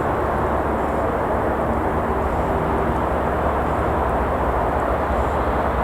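Steady, unbroken noise of road traffic, a continuous rumbling hum with no pauses.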